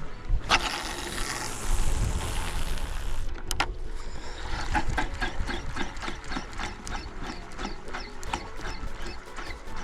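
A hiss for about three seconds, then a sharp click, then a fishing reel being wound in with rapid, even clicking, about four a second.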